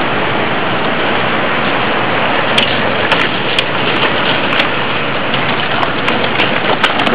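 Steady noise of road traffic passing, tyres on pavement, with scattered sharp clicks from about two and a half seconds in.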